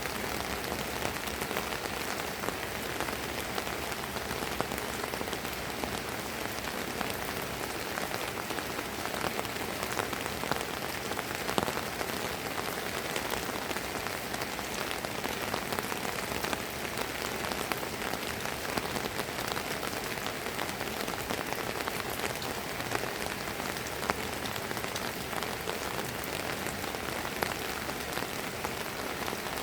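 Steady drizzling rain falling on surfaces, an even hiss with many small scattered drop ticks and an occasional louder drop.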